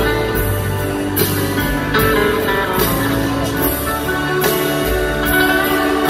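Live band playing a slow country ballad through an arena sound system, with guitar to the fore and little or no singing.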